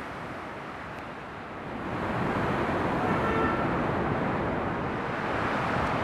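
Steady outdoor rush of road traffic, louder from about two seconds in, with a brief car horn about three seconds in.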